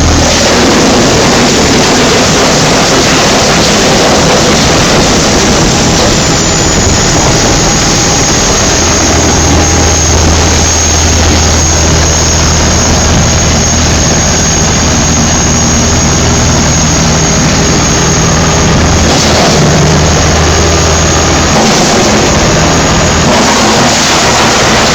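Diesel-engined wood chipper running loudly and steadily, a low engine drone under a dense mechanical rush, with a thin high whine joining about six seconds in.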